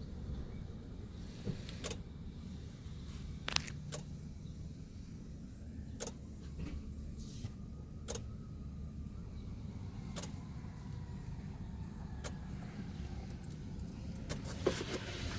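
Sharp clicks repeating about every two seconds over a low steady hum, from a 2014 Chevy Silverado that will not crank: the clicking of an electrical system on low battery voltage.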